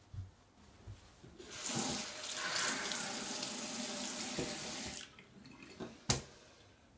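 Bathroom tap running into a sink for about three and a half seconds, then shut off. A single sharp click comes about a second later.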